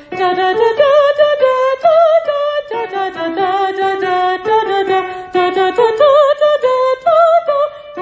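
Music: female voices singing a wordless passage in two moving lines of short notes, the upper line with vibrato, from an SSAA choir rehearsal track.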